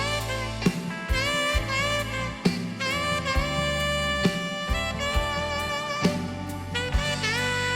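Instrumental break in a gospel worship song: a solo lead instrument plays a melody of sliding, bending notes over bass and a steady drum beat.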